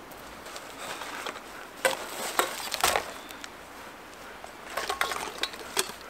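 A plastic bag rustling and crinkling, with scattered small clicks and taps as things are handled out of it.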